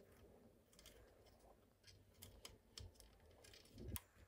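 Faint, scattered light clicks and ticks of hands handling rubber loom bands on a plastic loom.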